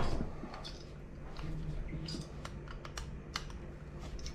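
A knock right at the start, then scattered light clicks and taps of small metal pieces being handled: cast lead sinkers on their wire being worked out of a sinker mould.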